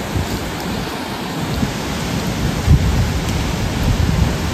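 Waterfall rushing steadily through a narrow rock gorge, a constant roar of water with a few heavier low surges.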